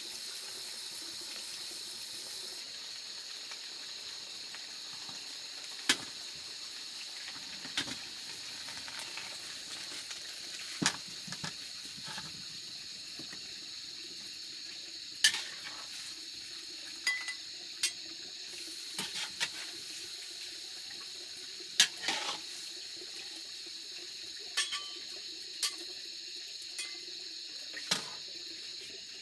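Leafy greens sizzling in a wok over a wood fire, a steady hiss, with sharp clinks of a utensil against the metal wok and a bowl every second or few.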